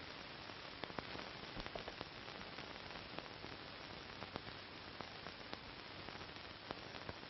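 Steady hiss of an old film soundtrack, with faint scattered clicks and crackles.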